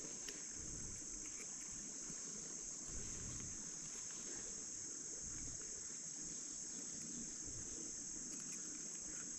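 Steady high-pitched chorus of crickets, unbroken throughout, over a faint low rumble.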